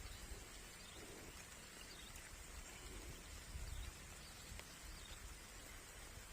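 Faint outdoor field ambience: a low rumble with a few faint, short bird calls.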